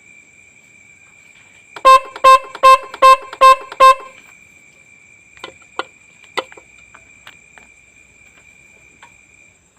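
Roots Windtone electric horn, freshly serviced and tuned, sounding six short sharp honks in quick succession, about two and a half a second. The tone comes out clear and sharp, the sign that the adjusting screw is now set right. A few faint clicks follow.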